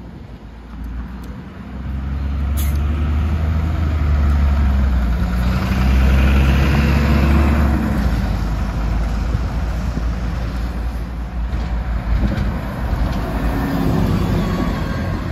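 Red London double-decker diesel buses driving past close by. One bus accelerates away, its engine note loudest about six seconds in, followed by steady engine and road noise. A second bus's engine comes through close near the end.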